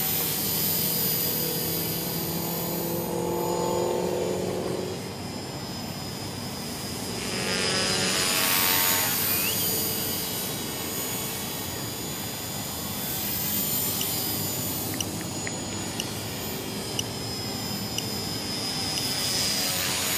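Align T-Rex 450 Pro electric RC helicopter in flight: a steady high whine from the motor and gears mixed with rotor blade noise. It swells louder for a couple of seconds about eight seconds in.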